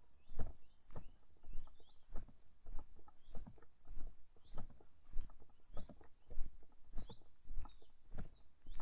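Footsteps of a person walking at a steady pace, about one step every half second or so. Small birds chirp in short, high-pitched clusters several times.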